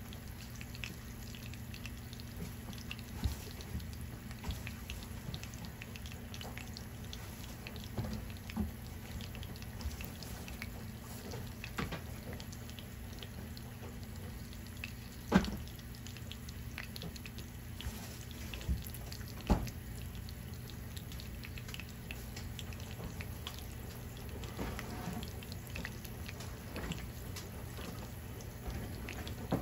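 Kitchen cooking sounds: faint water sounds over a steady low hum, with a few sharp knocks scattered through, the loudest about halfway through.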